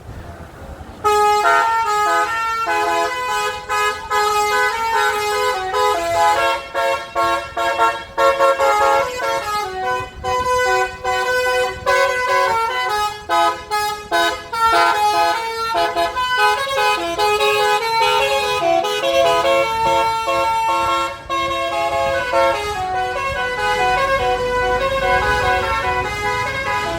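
Bus telolet horn of the 'basuri' type, a multi-tone musical horn, playing a fast tune of short, changing notes. It starts about a second in and keeps going with brief breaks.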